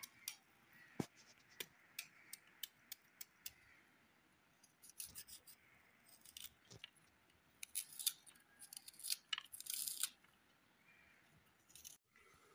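A small knife peeling and trimming red onions: dry onion skin crackling and tearing, with many light, irregular clicks of the blade, bunching into a denser crackle about eight to ten seconds in.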